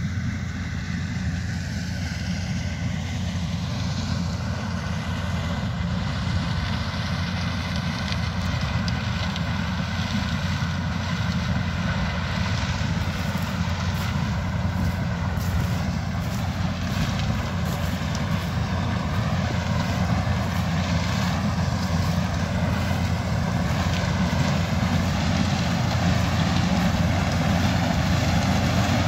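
New Holland CX5080 combine harvester running steadily while harvesting dry grain maize, slowly getting louder as it comes closer.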